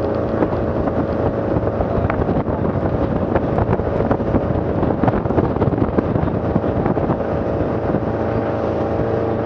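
Bayliner speedboat's engine running steadily at speed, with rushing water, frequent small knocks as the hull meets the waves, and wind buffeting the microphone.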